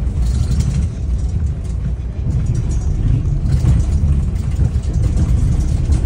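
Daewoo FX116 bus's engine running as the bus drives, heard from inside the passenger cabin as a steady low rumble.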